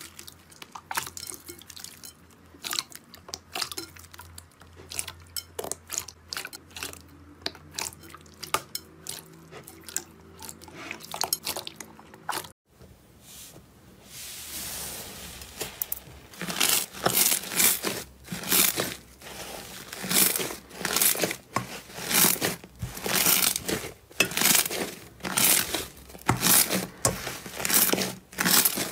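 Hands squeezing clear blue slime, with many small soft clicks and squelches. After a break about twelve seconds in, hands press and stretch a thick yellow slime. As it pulls apart it gives loud crackling, tearing strokes about once a second.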